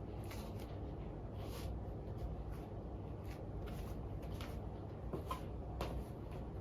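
Nylon stockings being rubbed and scratched: soft, irregular swishing strokes, one or two a second, over a low steady rumble.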